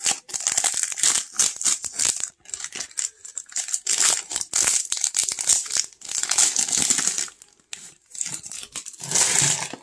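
Foil trading-card pack wrapper crinkling and tearing as it is pulled open by hand, in a run of irregular rustles with short pauses.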